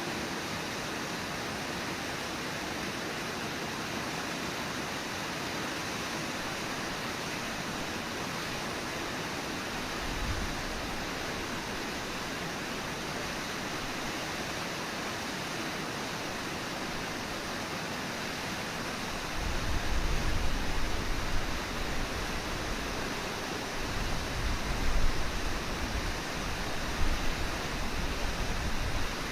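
Steady rushing of Brooks Falls, the waterfall on the Brooks River. From about two-thirds of the way through, an uneven low rumble comes and goes on top of it.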